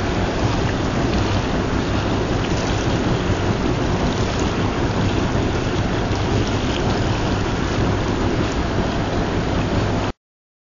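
Water and slurry gushing from a pipe into a wooden box at an alluvial gold plant, a steady dense rush with a low hum underneath. It cuts off suddenly near the end.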